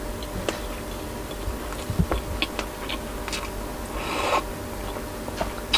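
Small wet mouth and chewing clicks, then a short slurp of soup broth sipped from a glass bowl about four seconds in.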